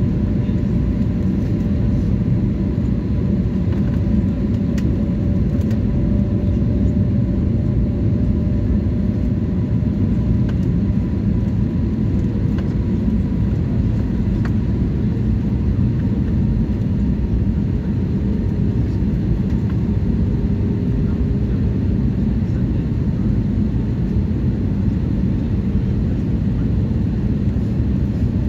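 Steady cabin noise of a jet airliner descending on approach to land: a constant low rumble of engines and rushing air, with faint steady hum tones over it.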